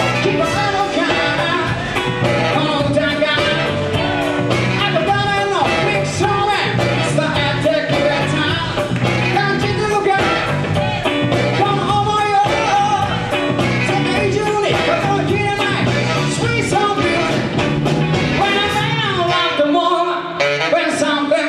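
Live band playing an upbeat song with a lead vocal over drums, bass and guitar; the bass drops out briefly near the end.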